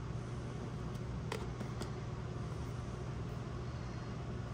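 Steady low hum under a soft hiss of background noise, with two faint light clicks about a second and a half in.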